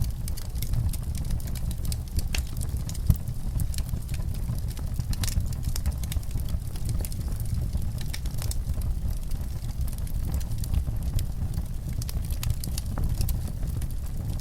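Fire in a fireplace crackling: a steady low rumble of the flames with frequent irregular sharp crackles and pops, one louder pop about three seconds in.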